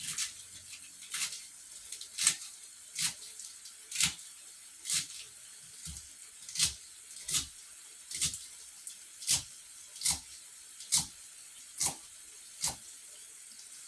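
Knife chopping collard greens on a cutting board: about fifteen sharp chops at an even pace of a little more than one a second.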